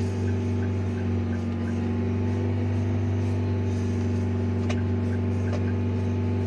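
Steady low drone of a car's engine and road noise while driving, with faint regular ticking about three times a second and a couple of light clicks near the end.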